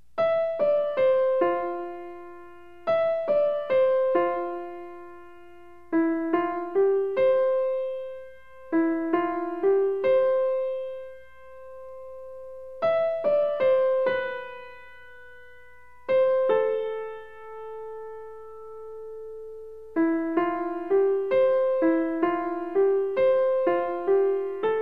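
Background music: a slow keyboard melody of single struck notes that ring and fade, in short phrases, with a few long held notes about halfway through.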